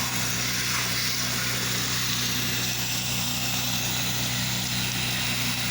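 Pressure washer running steadily while rinsing a house: an even engine hum under the hiss of the water spray.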